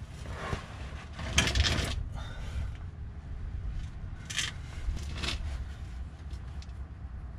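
A steering rack being manoeuvred under a car: metal scraping and clinking against the concrete floor and the underbody, loudest in a scrape about a second and a half in, with shorter scrapes and knocks later, over a low rumble.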